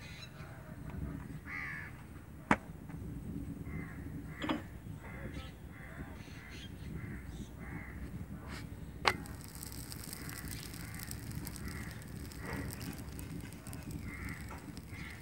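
Crows cawing again and again over a low steady rumble, with two sharp taps, about two and a half seconds in and a louder one about nine seconds in.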